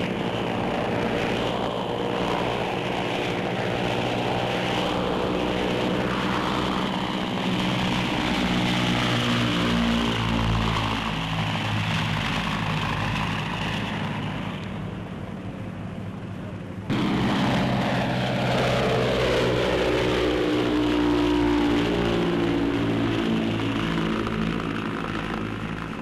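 Piston engines and propellers of a large flying boat droning steadily during its take-off run and climb. About 17 s in, the sound cuts to a louder drone whose pitch falls over several seconds, as a plane passing overhead does.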